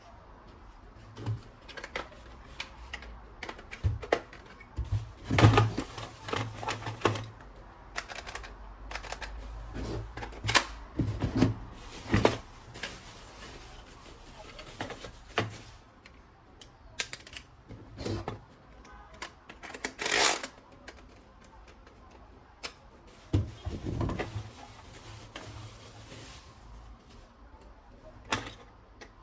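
Irregular clicking, knocking and rattling of plastic toy guns and their parts being handled and unpacked, with occasional quick runs of clicks.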